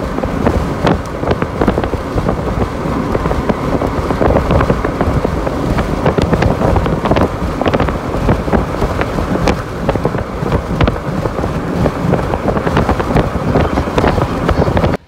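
Strong wind buffeting the microphone: a loud, steady rush with many small crackles.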